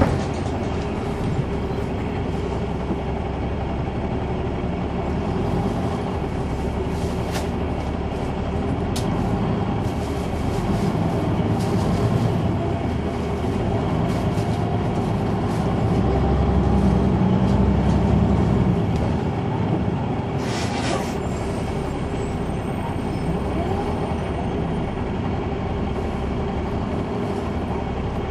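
Caterpillar C9 ACERT diesel engine of an articulated Neoplan AN459 transit bus, heard from on board as a steady hum while the bus drives. It swells a little louder about two-thirds of the way through, with a few short clicks and a brief hiss.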